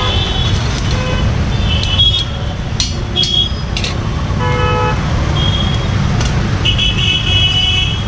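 Steady low rumble of street traffic with vehicle horns honking again and again, the longest horn near the end. A few sharp clicks sound in the middle.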